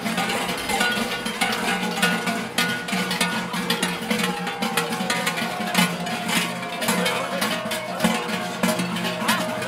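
Many large bells worn on the backs of a group of zvončari (Croatian carnival bell-ringers), clanging together in a dense, continuous din as they march and sway, with rapid irregular strikes over a sustained metallic ring.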